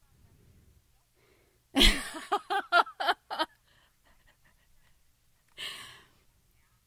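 A woman laughing: a loud first burst, then a quick run of about six short 'ha' pulses, and a breathy intake of breath a couple of seconds later.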